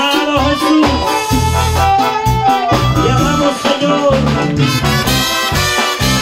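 Live band playing an upbeat Latin dance-style gospel song: a sung melody with saxophone over a steady pulsing bass and drums.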